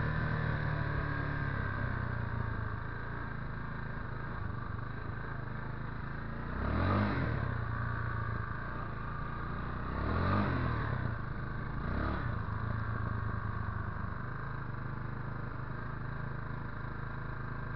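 Motorcycle engine running under way, steady for the most part, with the revs swelling up and falling back twice, about seven and ten seconds in.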